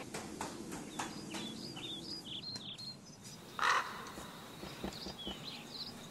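A few quick footsteps on stairs at the start, then birds outdoors: small birds chirping over and over, and a crow cawing once about three and a half seconds in.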